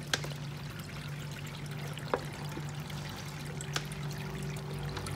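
Steady trickle of water over a low hum, with three light clicks from plastic as the pump hose is pushed into a hole in a plastic grow bin.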